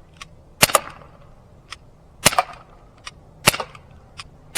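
Umarex Glock 19 CO2 BB pistol firing four sharp shots a second or so apart, with fainter ticks between them.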